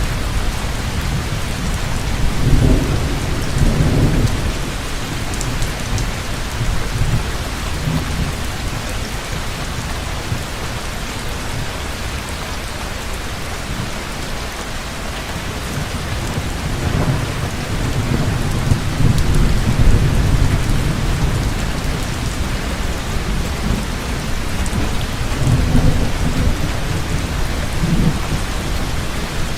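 Heavy rain falling steadily with a constant hiss, while thunder rumbles low several times: near the start, through the middle, and again near the end.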